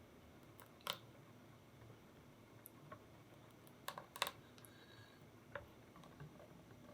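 Faint kitchen work: a few short, light clicks and taps of utensils, the loudest two close together about four seconds in, over a quiet background.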